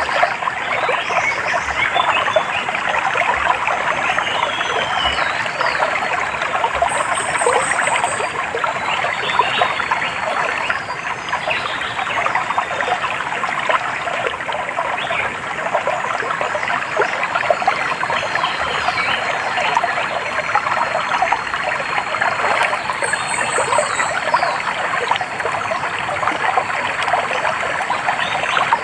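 A small stream running and trickling steadily over stones, with birds chirping now and then above it. A short, rapid high trill comes twice, at about 7 seconds and about 23 seconds.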